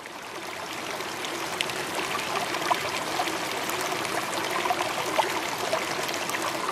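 Running water like a small stream: an even rush with scattered small trickling ticks.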